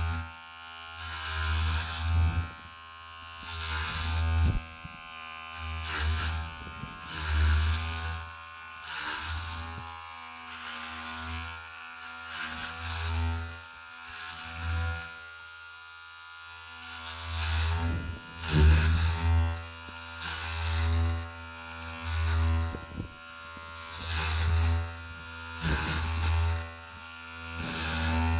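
Electric hair clipper buzzing close to the microphone. Its steady hum swells and fades every second or two as it passes near and away, and it eases off briefly about halfway through.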